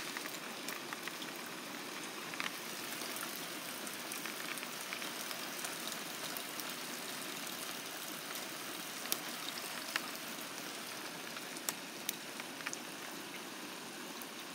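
Freezing rain falling: a steady hiss with a few scattered light ticks of ice striking.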